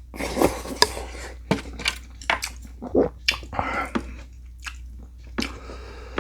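A person chewing food close to the microphone: irregular wet smacks and small crunchy clicks, several a second.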